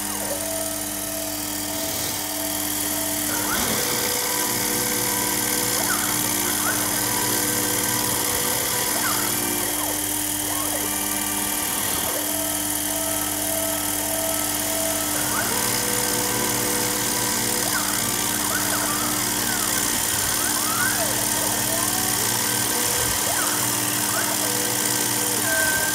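Sherline 5410 CNC mill at work: the spindle runs steadily while a small end mill cuts a pocket in white-faced particleboard with a steady hiss. The stepper-driven table whines at pitches that switch every few seconds as the cut changes direction.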